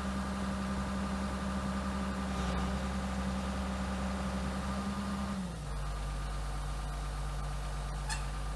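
Excavator engine running steadily, then its speed drops to a lower hum about five and a half seconds in.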